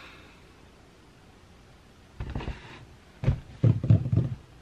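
Handling noise of a cardboard camera box being lowered and set down: a short rustle about two seconds in, then a few dull thumps and knocks a little after three seconds in.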